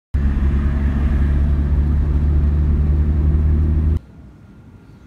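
Steady, loud low rumble of a running vehicle, with an even engine hum. It cuts off abruptly about four seconds in, leaving a faint hiss.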